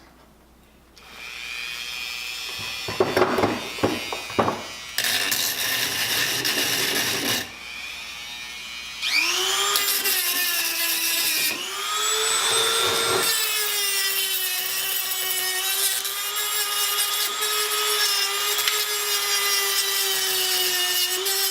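Handheld electric power tool with a cleaning attachment scrubbing a brake caliper: the motor is triggered in several short runs, whining up in pitch as it spins up each time, then runs steadily for the last eight seconds or so.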